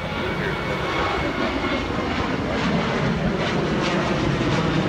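Jet noise from a Boeing 737-700's CFM56 engines at climb power as it passes overhead just after takeoff, steady and growing slightly louder.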